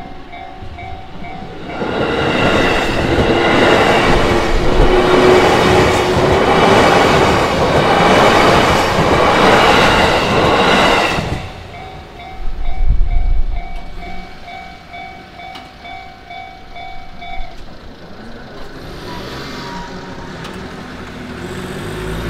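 Japanese railway-crossing warning bell ringing in repeated strokes, about two a second, drowned out for about nine seconds by the loud rush of a passing train. A burst of low rumble follows the train. The bell keeps ringing after the train has passed and stops about five seconds later.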